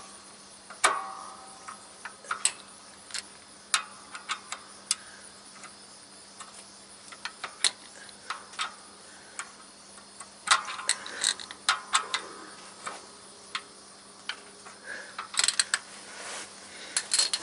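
Irregular sharp metallic clicks and clanks of a wrench turning the adjusting bolt of a heavy truck's quick-adjust clutch through the bell-housing inspection opening, bunched into quicker runs about two-thirds of the way through and again near the end.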